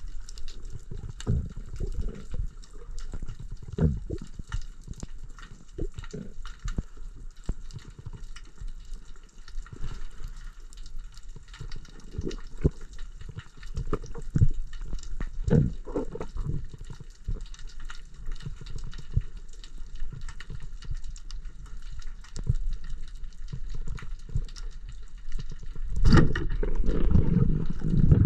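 Underwater sound from a freediver's camera: low, uneven rushes of water against the camera housing with scattered clicks and knocks. About 26 s in, a louder, fuller churning of water sets in.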